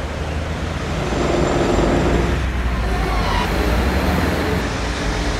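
Road traffic noise from passing cars, then, about halfway through, a metro train running through an underground station with a steady rumble.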